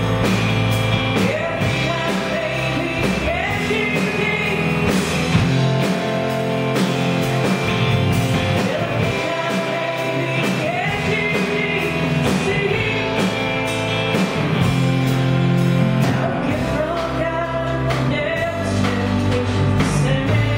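Live country-rock band playing, with a lead singer singing into the microphone over the instruments, steadily and without a break.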